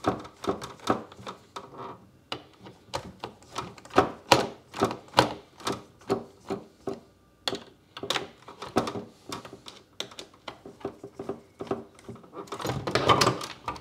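Hand screwdriver backing out the mounting screws of an aquarium light fixture's starter/ballast: a long run of sharp, irregular clicks, a few a second, thickening into a denser cluster near the end.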